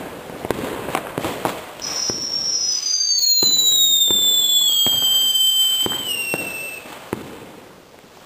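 Ground fountain firework spraying white sparks with a loud whistle that starts about two seconds in, splits into one tone rising and one falling, and dies away about seven seconds in. Scattered sharp firecracker bangs go off around it.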